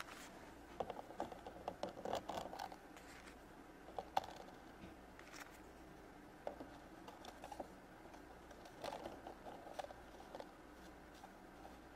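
Faint, irregular clicks and taps of small plastic toy figures being handled and set onto the plastic shelves of a toy refrigerator, with fingers brushing the plastic. The sharpest click comes about four seconds in.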